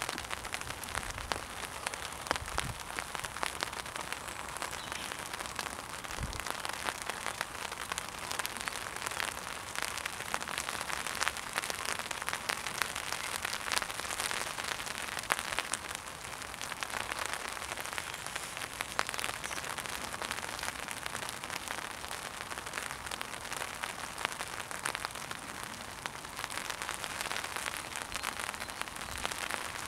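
Steady rain falling, with many close drops tapping on a fishing umbrella canopy overhead as a constant stream of small ticks.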